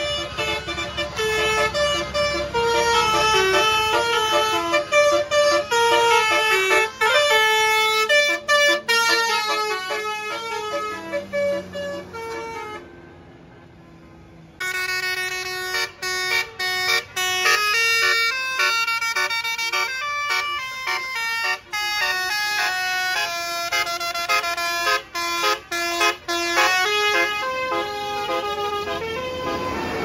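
Basuri telolet bus horns playing a stepped multi-note tune, several horn tones sounding together, loud. The tune breaks off for about two seconds near the middle, then starts up again and runs on.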